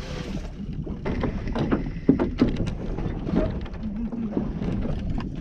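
Fishing boat deck sounds: a steady low rumble with a scatter of sharp knocks and clatters, the loudest a little over two seconds in.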